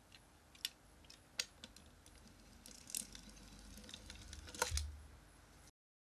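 Small plastic toy jeep handled in the hand: scattered light plastic clicks and knocks, with a louder knock and thud near the end.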